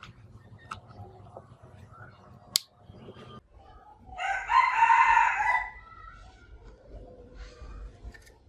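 A rooster crows once, a pitched call about a second and a half long starting about four seconds in. Before it come a few sharp clicks as a DC power plug is pushed into the boombox's power jack.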